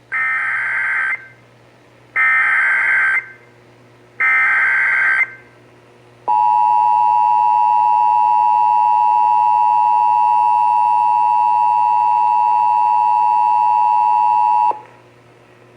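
Emergency Alert System SAME header: three one-second bursts of digital data tones about two seconds apart. They are followed by the EAS attention signal, a steady two-pitch tone (853 and 960 Hz) lasting about eight seconds and then cutting off, which marks the start of an emergency alert, here a flash flood warning.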